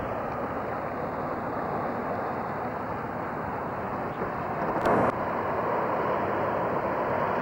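Steady rush of wind and vehicle rumble on a camcorder microphone, filmed from a car on a dirt track. A short thump comes about five seconds in.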